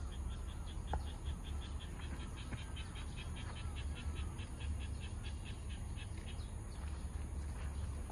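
A bird calling outdoors: a rapid, even series of short high notes, about five a second, that stops about six and a half seconds in. A steady low rumble runs underneath.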